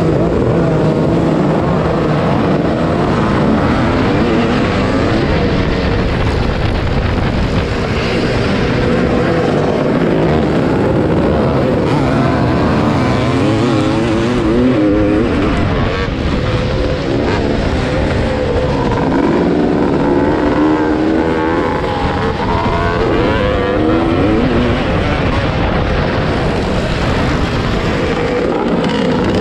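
Yamaha YZ465 two-stroke motocross engine revving up and down as the rider races the track, heard from a helmet camera, with other vintage dirt bikes running close by.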